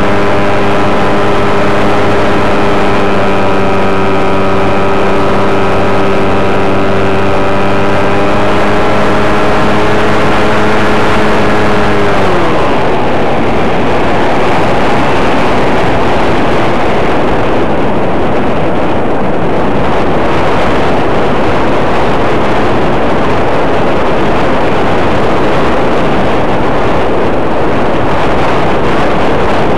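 Turnigy 1100kv brushless motor and propeller on an MS Swift 2 RC plane, heard through the onboard microphone, whining at a steady pitch. About twelve seconds in, the whine drops in pitch and dies away as the motor winds down, leaving loud wind rushing over the microphone.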